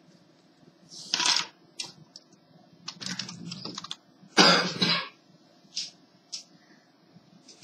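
Handling noise of a laptop and its loose keyboard being picked up and set down on a desk: irregular plastic clatter and clicks, loudest about a second in and again about four and a half seconds in, with a few lighter clicks near the end.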